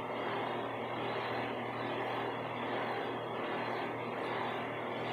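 Steady background noise with a constant low hum underneath, unchanging throughout.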